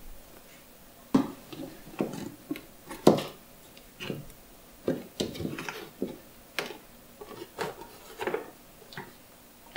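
Hard plastic lid of a storage box being worked open: a series of short clicks and knocks, roughly one a second, as the lid is unclipped and lifted.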